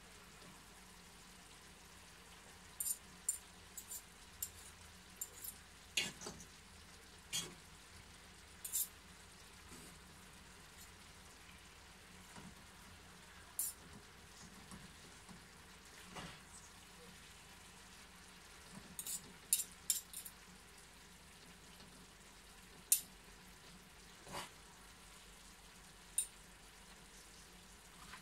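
Chicken, noodles and bok choy sizzling faintly in a frying pan, with irregular sharp clicks and scrapes of a metal fork and spatula tossing the food against the pan.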